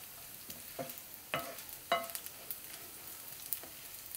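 Basmati rice roasting in ghee in a nonstick pan, stirred with a wooden spatula: a faint steady sizzle with several light knocks of the spatula against the pan.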